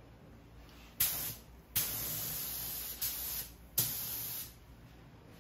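Compressed-air paint spray gun hissing in four bursts, each starting abruptly as the trigger is pulled: a short one about a second in, a longer one of just over a second, then two more short ones.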